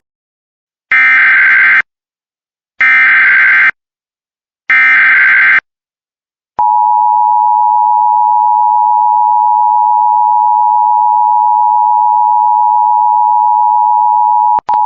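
Emergency Alert System broadcast tones: three short bursts of SAME header data, each about a second long, followed by the steady two-tone EAS attention signal, which holds for about eight seconds with a very brief dropout near the end.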